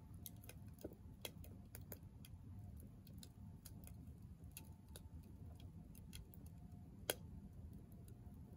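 Faint crackling of split firewood burning in a small Soomloom MECA stainless wood stove: irregular sharp snaps, one louder pop about seven seconds in, over a low steady rumble.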